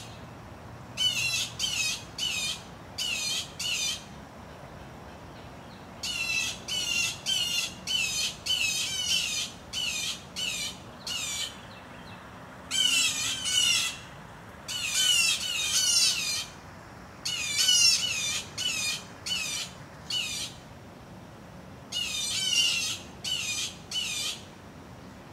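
Blue jays giving repeated alarm calls in runs of several calls, with short pauses between runs. The jays are raising the alarm at a rat snake.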